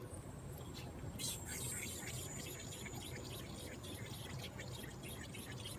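Refrigerant hissing from a can through the charging hose into the AC system's low-side port during the initial fill with the engine off, with a thin steady high whistle and a soft rush of flow that picks up about a second in.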